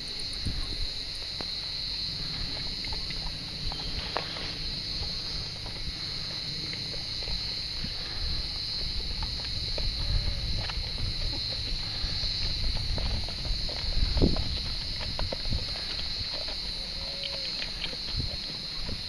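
A steady high-pitched insect chorus, with horses' hooves clopping at a walk on a dirt track, the clops growing more frequent near the end, over a low uneven rumble.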